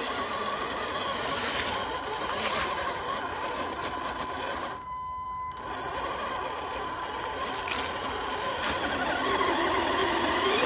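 Electric motor and gearbox of a Tamiya King Hauler RC truck whining steadily as it climbs a steep slope, cutting out briefly about halfway through. Near the end the whine rises and falls as the wheels spin and lose traction.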